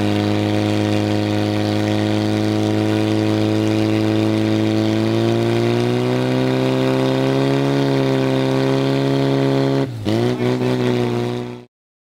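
Portable fire pump engine running at high, steady revs, driving water through the hoses to the nozzles. Its pitch rises slightly about halfway through, dips sharply near the end and recovers, then the sound stops abruptly.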